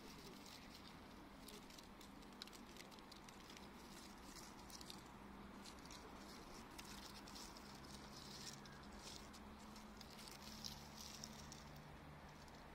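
Near silence: faint outdoor ambience of light, rapid ticks and rustles over a faint low steady hum.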